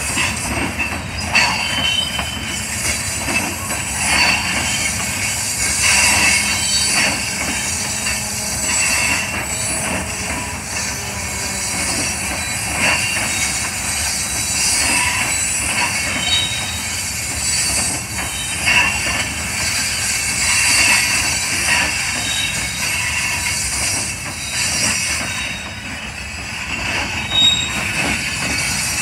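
Freight train rolling slowly past, its steel wheels giving short, high squeals and screeches against the rails. Irregular clanks and clacks come from the wheels over the rail joints.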